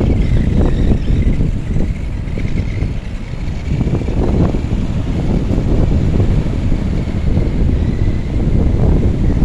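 Wind buffeting the microphone, with the faint thin whine of a remote-control truck's motor rising and falling as the truck spins its wheels.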